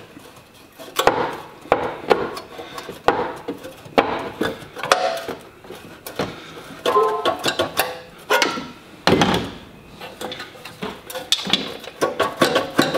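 Irregular metal clanks and knocks as a pry bar works at a stuck intake manifold on a Datsun L28E inline-six, with background music under it.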